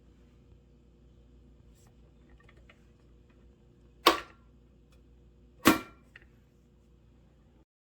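Two sharp clicks about a second and a half apart, over a faint steady hum, followed by a much fainter click.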